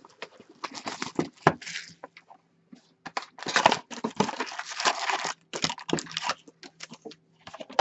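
Plastic wrapping being torn and crinkled off a sealed box of hockey cards, in irregular bursts of tearing and rustling.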